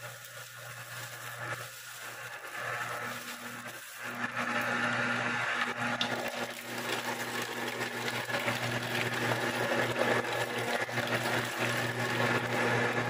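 Commercial electric meat grinder running with a steady hum as it grinds raw chicken heads into mince. It gets louder about four seconds in.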